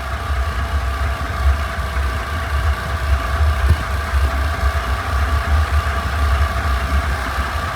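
Lawnmower engine running at a steady speed: a deep even rumble with a steady higher hum over it.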